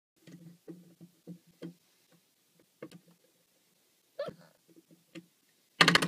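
Spring door stopper twanging as a Cavalier King Charles spaniel puppy bites and paws at it: a string of short boings, all at the same low pitch, then a sudden loud twang near the end that keeps ringing.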